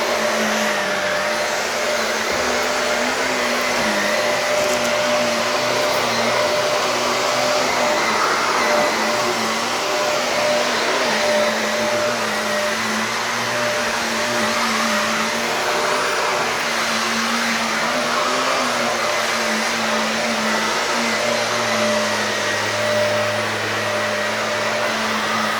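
Shark vacuum cleaner running steadily on carpet, a dense whooshing noise over a motor hum that wavers slightly in pitch.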